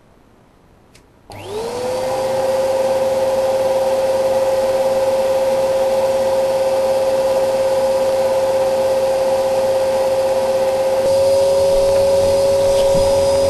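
Vacuum cleaner switched on about a second in: the motor whine rises as it spins up, then runs steadily, with a slight step up in level near the end.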